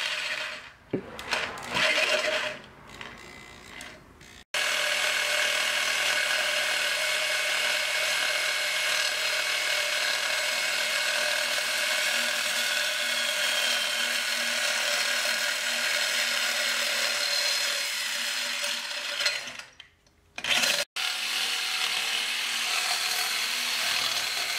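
Corded reciprocating saw cutting through a metal turbo intercooler pipe. It comes in short stop-start bursts at first, then runs steadily through the cut for about fifteen seconds, stops briefly, and starts cutting again near the end.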